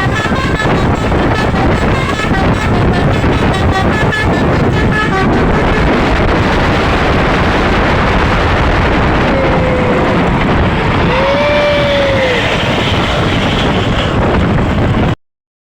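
Bus telolet horn (Basuri type) playing a quick run of short notes, fading under steady loud road noise after about five seconds; the sound cuts off suddenly near the end.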